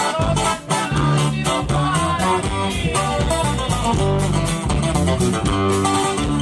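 Live band playing a song on guitars and electric bass, with a steady beat.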